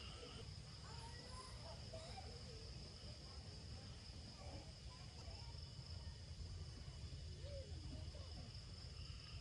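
Insect chorus, mostly crickets, trilling as one steady high-pitched drone over a low steady rumble.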